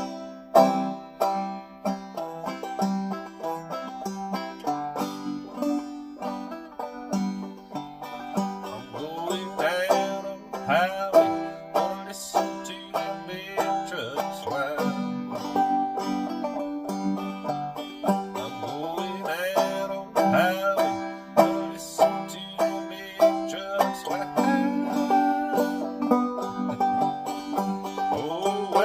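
Five-string banjo played clawhammer style: a steady, rhythmic run of plucked and brushed notes carrying a country-folk tune.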